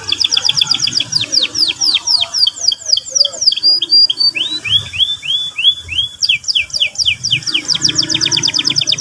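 Domestic canary singing: series of repeated sharp, high down-sweeping chirps, slowing to fewer looping notes in the middle, then speeding into a fast rolling trill after about six seconds.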